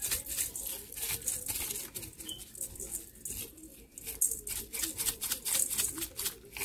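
Dry seasoning shaken from a spice shaker: a quick, uneven run of dry, high rattles, with a short lull a few seconds in.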